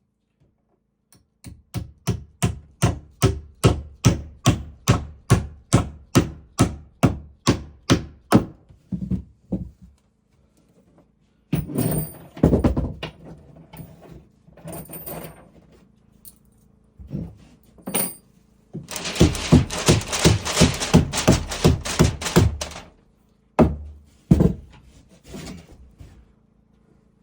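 Hammer driving a nail into wood with steady blows about three a second, the strokes easing off about nine seconds in. After a pause come a few heavier knocks and then a quick run of noisier strokes.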